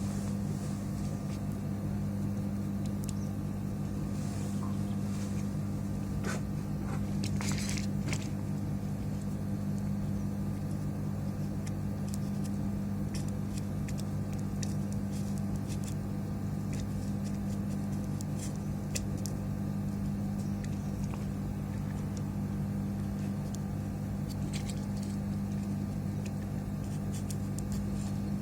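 Steady low electrical hum, such as bench equipment running, with faint scattered clicks and taps of small tools at the workbench.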